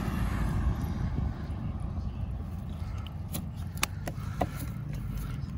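Steady low outdoor rumble, with a few light, sharp clicks and taps in the second half.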